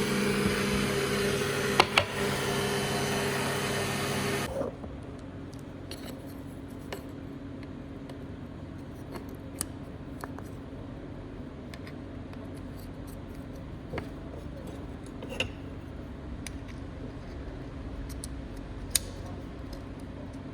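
An electric power tool's motor running steadily and then switching off about four seconds in. After it stops come scattered light clicks and taps of hand work on the workpiece.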